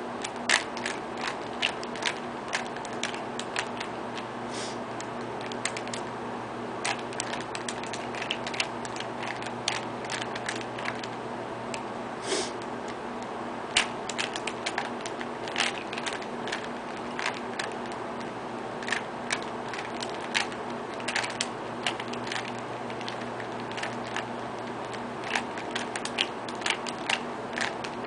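Rubik's Cube layers being turned by hand: irregular plastic clicks and clacks in quick runs with short pauses, over a steady low hum.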